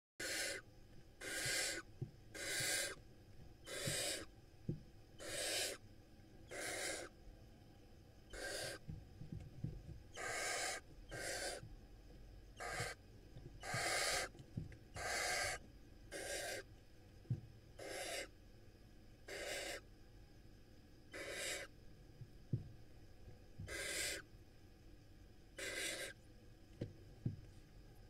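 Barn owl owlets giving their rasping hiss, the 'snoring' food-begging call of barn owl chicks: short hisses of about half a second, repeated over and over about every second and a half.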